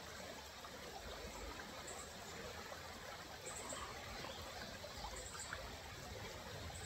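Shallow creek running over rocks: a steady, faint rush of flowing water.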